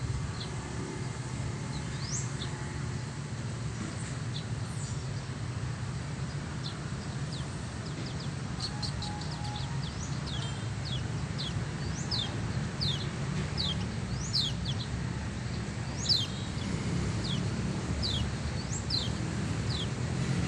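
A small bird calling with short, high chirps that drop in pitch. The chirps are sparse at first, then come more than once a second, over a steady low rumble.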